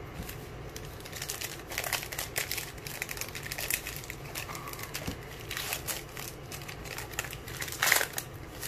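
Panini Select baseball card pack wrapper being torn open and crinkled in the hands, a dense run of irregular crackles with a louder crinkle near the end.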